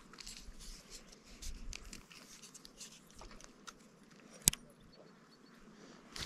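Faint irregular clicks and rustles of an angler handling a fishing rod and moving about, with one sharp click about four and a half seconds in.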